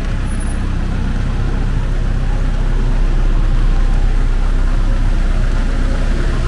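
Steady road traffic noise with a deep rumble, swelling a little a few seconds in.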